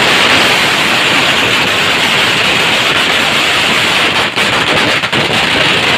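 A lit Diwali firework burning with a loud, steady hiss as it sprays sparks, with a couple of faint crackles partway through.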